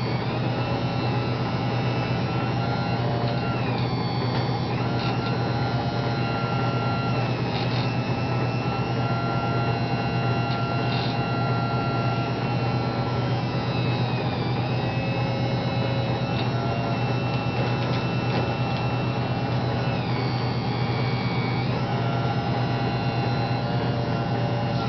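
Small electric motors of radio-controlled model construction machines running continuously with a steady hum and whine, the pitch dipping and rising again several times as they load up and ease off.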